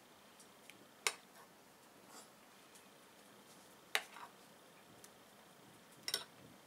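Metal spoon clicking against the bowls as soft mousse is scooped and served: three short sharp clicks, about a second, four seconds and six seconds in.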